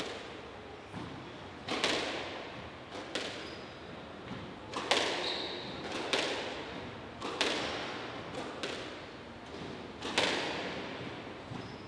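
Squash rally: the rubber ball smacked by rackets and slapping off the court walls, sharp hits roughly every one to one and a half seconds, each echoing in the enclosed court.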